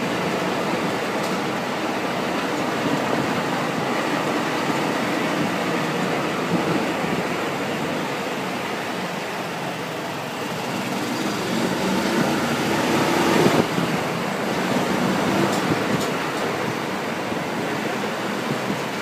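Steady rumble and rattle of a golf cart riding over an interlocking brick-paved street, with one louder knock from a jolt about thirteen seconds in.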